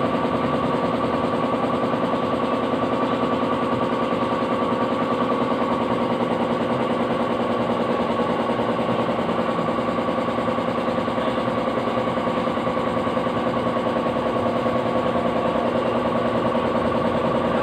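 A machine running steadily, a constant drone with a few fixed tones over a fast, even buzzing rattle that does not change.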